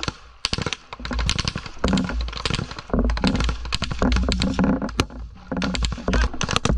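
Rifle fire at close range: a fast, irregular string of sharp cracks, several a second, with short gaps, over a low rumble.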